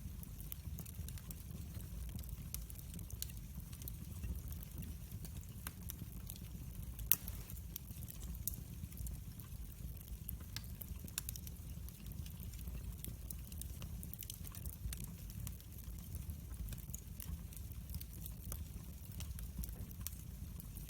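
Wood fire burning in a fireplace: a steady low rumble with frequent sharp crackles and pops, the loudest about seven seconds in.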